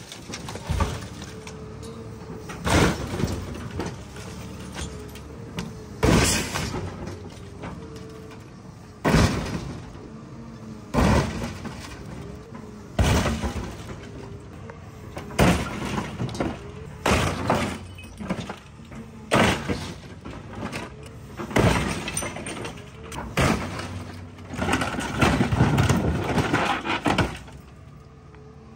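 A hydraulic excavator's bucket slams down again and again on an old car, crushing the sheet-metal body and breaking its glass. There are about a dozen heavy crunching impacts a second or two apart, coming closer together near the end. The excavator's engine runs steadily underneath.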